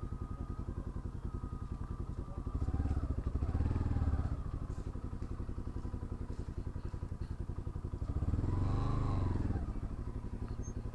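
Bajaj Pulsar NS200's single-cylinder engine with a modified exhaust idling, revved up and back down twice, about three seconds in and about eight seconds in.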